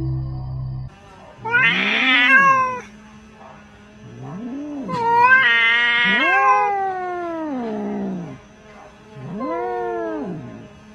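Cats yowling at each other in a quarrel: four drawn-out caterwauls, each rising and then falling in pitch, the third the longest at about three seconds. Music cuts off about a second in, before the first yowl.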